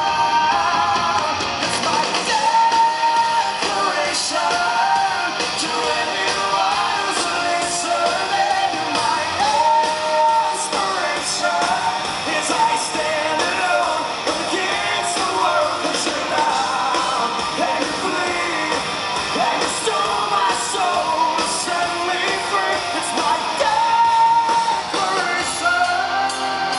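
Live rock band playing, with a male lead vocal singing over electric guitars.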